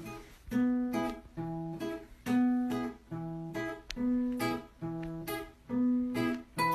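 Acoustic guitar strumming two chords back and forth at an even pace, about one strum a second.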